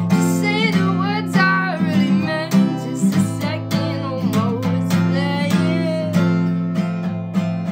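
Acoustic guitar strummed under a singing voice. Near the end the singing stops and the last strummed chord rings on and fades.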